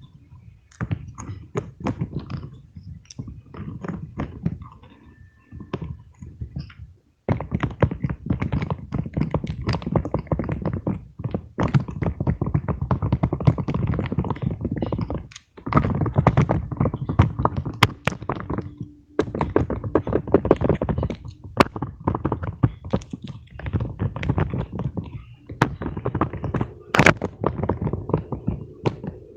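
Fidget toys handled close to the microphone: dense runs of soft thunks, taps and clicks, in stretches of several seconds broken by short pauses.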